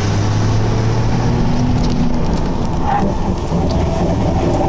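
Ford F-150 3.5-litre EcoBoost twin-turbo V6 pulling hard through a drag-race run, heard from inside the cab as a steady drone over road and wind noise.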